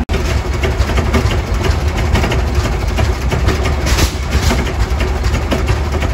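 Antique steel-wheeled tractor's big, slow-running engine idling, with a steady rhythmic beat over a low rumble.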